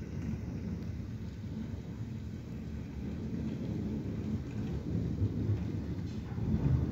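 Thunder rumbling low and continuously during a lightning storm, swelling louder toward the end.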